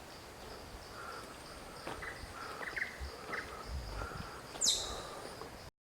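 Forest ambience: an insect's steady pulsing high note with short bird chirps over it, and a loud, sharp falling call near the end, before the sound cuts off abruptly.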